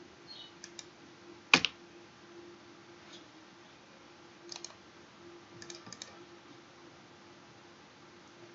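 Scattered clicks from a computer mouse and keyboard as the software is worked, the loudest a sharp doubled click about a second and a half in, the rest faint. A faint steady hum runs underneath.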